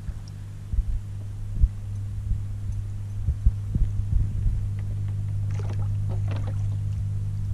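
Boat motor running with a steady low hum, with scattered low thumps in the first half.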